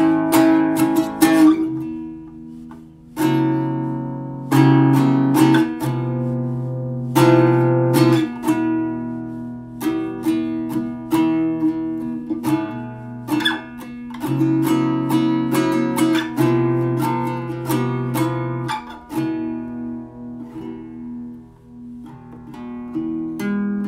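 Song passage of strummed acoustic guitar chords, each ringing out and decaying, with a short lull about two seconds in and no singing.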